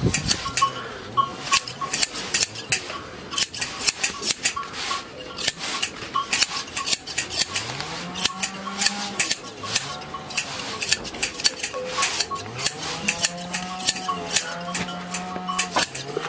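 Large ring-handled hand shears cutting through a sheep's fleece, the blades snipping shut in quick repeated cuts, about two to three a second.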